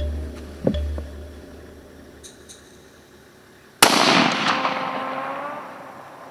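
A single rifle shot about four seconds in, followed by a long echo that fades away over about two seconds. Before it come a couple of faint knocks.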